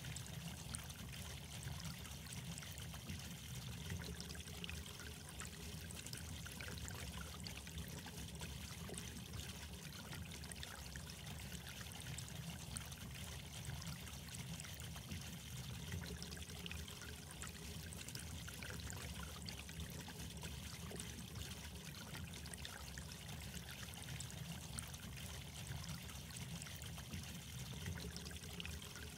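Steady trickling, babbling water. The same stretch seems to repeat about every twelve seconds, like a looped water recording.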